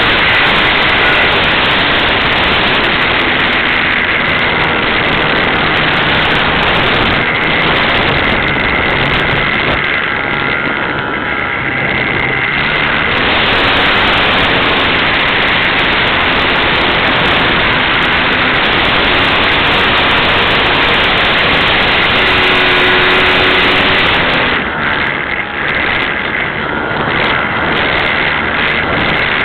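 Strong wind buffeting the microphone, with the steady whine of a Skyartec Cessna 182 RC model's electric motor coming and going under it.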